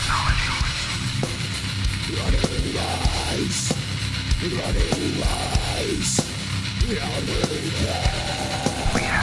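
Heavy metal song: fast, dense drumming under a loud band, with a pitched line that swoops up and down throughout.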